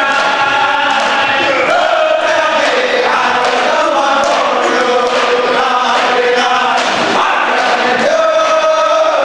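Powwow round dance song: a group of men singing together in unison, their phrases stepping down in pitch, over a steady hand-drum beat.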